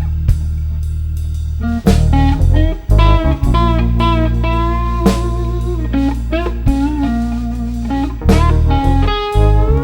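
Live blues-rock band playing an instrumental passage: an electric guitar lead with bent, wavering notes over sustained bass and a drum kit.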